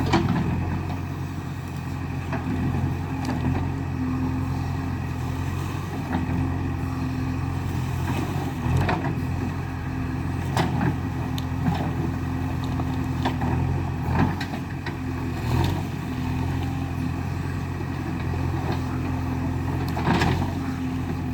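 JCB 3DX backhoe loader's diesel engine running steadily under work, with irregular knocks and clanks about every second or two.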